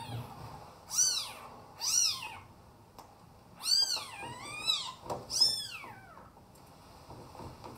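A cat mewing: five short, high-pitched calls, each rising and falling, spread over about five seconds.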